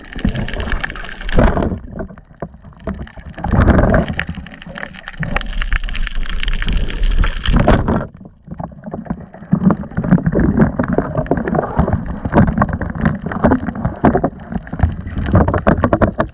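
Underwater sound from a diving camera: water rushing and gurgling past it in surges, with many small clicks and knocks.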